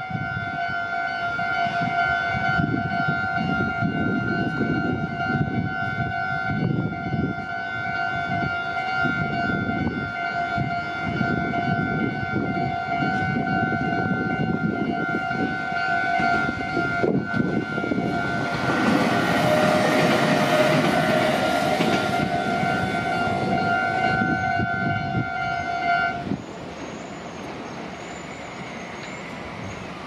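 Japanese level crossing's electronic warning bell ringing a steady repeating clang, while a Meitetsu electric train passes through about two-thirds of the way in as a loud rushing rumble. The bell stops about four seconds before the end, leaving a quieter rumble.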